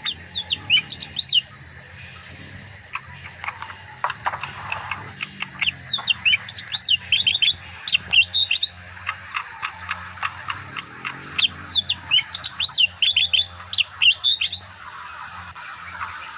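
A leafbird singing: three bouts of quick, varied whistled and chirped notes that sweep up and down, the first short, near the start, then a longer run from about three to nine seconds in and another from about eleven to fifteen seconds in.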